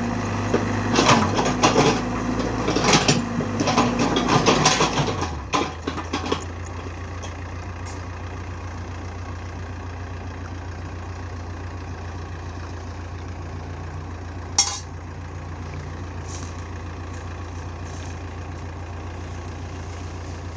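A heavy machine's engine running with loud knocks and clanks for the first five seconds. Its pitch then drops and it settles to a steady idle, with a single sharp click about fifteen seconds in.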